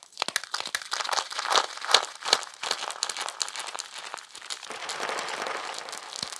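Crispy chalk chunks crunching and snapping as they are broken up: a dense run of sharp cracks, with a grittier crumbling stretch in the second half.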